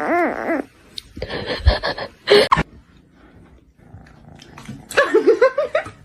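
A pet animal's wavering, warbling call, its pitch wobbling several times a second: one call ends about half a second in and a second, rising call comes near the end, with a few short knocks in between.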